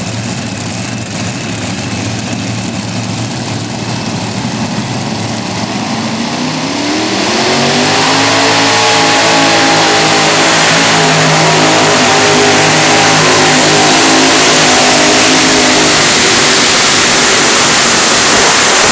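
Modified pulling tractor's engines running steadily, then revving up about seven seconds in and held at full throttle, loud and steady, while pulling the weight sled.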